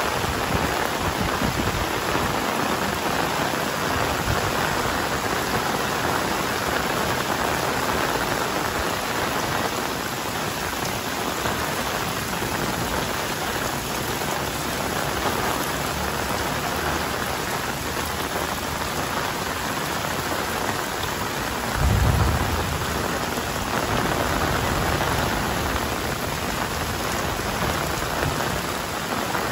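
Heavy rain falling steadily, with a brief low rumble about twenty-two seconds in.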